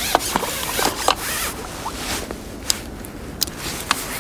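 Fishing reel on a feeder rod working as a hooked fish is played in, giving a zip-like run of irregular sharp clicks.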